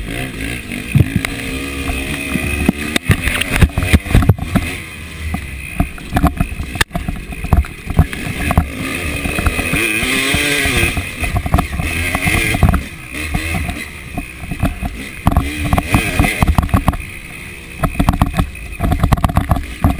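KTM 300 two-stroke enduro bike engine revving up and down as the bike is ridden hard along a rough trail, with frequent sharp knocks and rattles from the bumps.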